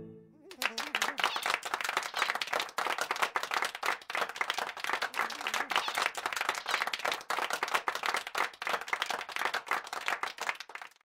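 Applause: many people clapping, starting about half a second in and cutting off abruptly just before the end.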